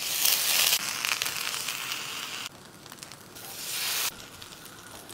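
Oily tomato basting sauce sizzling on a hot ridged grill pan. The sizzle is loud for the first two and a half seconds, eases off, then flares again briefly about three and a half seconds in as the rolled sandwich is pressed onto the ridges.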